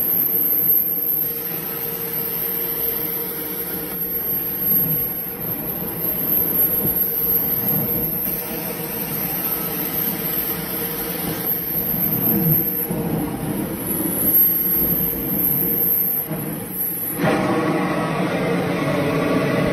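Carpet-extraction vacuum motors boosted by a Mytee Air Hog vacuum booster, running steadily as the cleaning wand is pulled across carpet: a constant hum with a high whine over it. The sound turns coarser and louder near the end.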